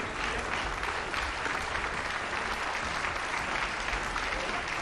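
Theatre audience applauding steadily through the curtain call.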